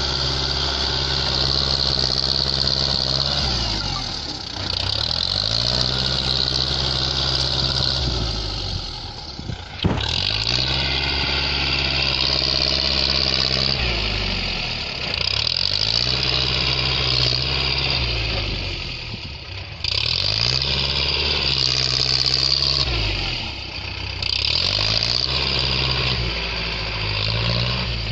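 Kubota tractor's diesel engine running loud through its vertical exhaust stack while it dozes soil with a front blade. Its pitch sags and recovers every four to five seconds as the blade takes up and sheds its load, with one sharp click about ten seconds in.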